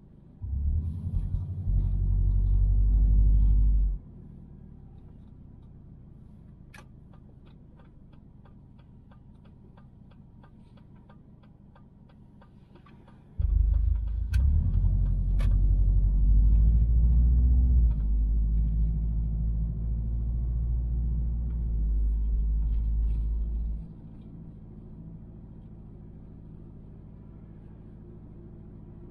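Low rumble of road and engine noise inside the cabin of a 1999 Subaru Forester while driving. It swells loud twice, briefly near the start and for about ten seconds from the middle, each time dropping back abruptly to a quieter steady drone.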